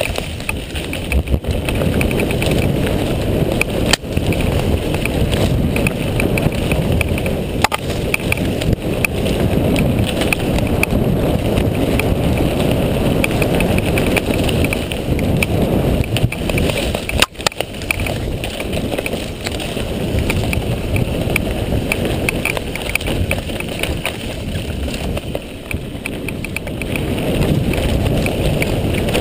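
Mountain bike riding fast down a dirt trail: tyres rumble steadily over the dirt, with wind buffeting the microphone. A few sharp knocks come as the bike goes over bumps, the loudest about seventeen seconds in.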